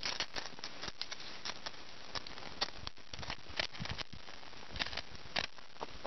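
Scattered light scrapes and clicks over a steady hiss: an inexpensive ferrocerium rod struck a few tries at a ball of thistle fluff and pine gum, which catches and burns with a faint crackle.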